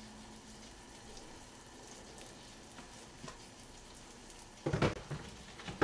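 Faint, steady sizzle of chicken-breast steaks frying in a pan on the stove. Near the end it is broken by a short knock and then a sharp click, like utensils or a bottle against the counter.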